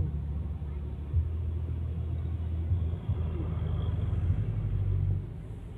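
Low, steady rumble of a road vehicle's engine, dipping briefly a few times.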